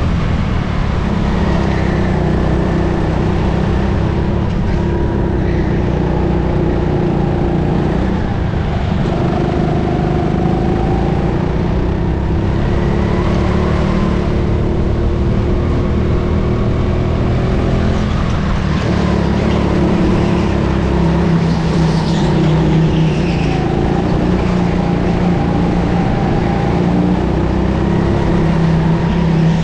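Onboard go-kart engine running hard, its note dipping and rising again several times as the kart slows for corners and accelerates out of them.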